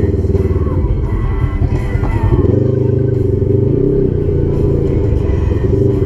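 Polaris RZR XP 1000 side-by-side's parallel-twin engine running under load, steady and loud, pitch shifting up slightly about two and a half seconds in.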